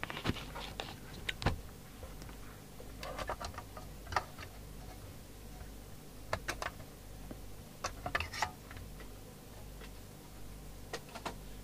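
Handling of a CB radio's case as it is taken apart: scattered clicks, taps and short scrapes as the set is turned over and its cover is lifted off, in several small clusters.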